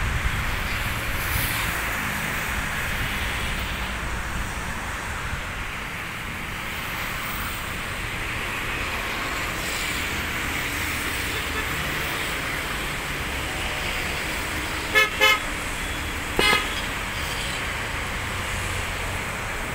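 A vehicle horn beeps twice in quick succession about three-quarters of the way in, then once more a second later, over a steady rushing background noise.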